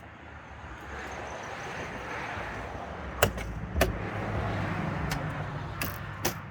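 A motor vehicle driving past, its tyre and engine noise swelling up and easing off, with several sharp clicks over it.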